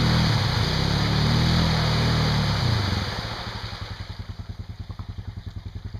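ATV engine revving under load as the quad churns through deep mud and water, with splashing. The pitch dips, climbs again, then falls to an even, rapid idle about three seconds in.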